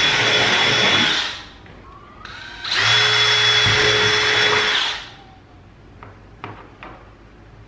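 A cordless DeWalt drill runs at full speed with a steady whine, boring holes through a golf cart roof. One run stops about a second in, and a second run starts near three seconds and stops about two seconds later. A few faint clicks follow near the end.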